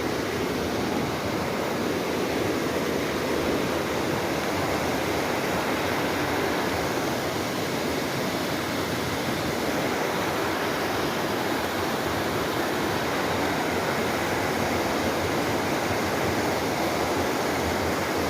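Steady rushing water, an even, unbroken noise.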